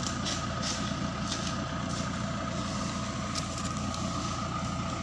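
Crane truck's engine running steadily, with a constant high whine over the low engine sound and a few faint ticks.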